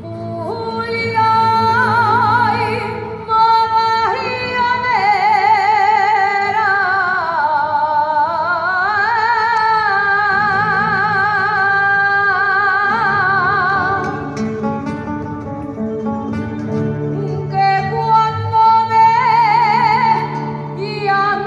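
Live Aragonese jota: a solo singer holds long, ornamented notes with wide vibrato over plucked-string accompaniment. The voice drops out for a few seconds past the middle, then comes back.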